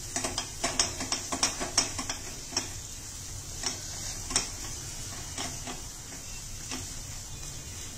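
A spatula scrapes and taps against a kadai as a thick ground spice paste is stirred and roasted in ghee, with a light sizzle underneath. Quick clicks come several times a second for the first few seconds, then thin out to an occasional tap.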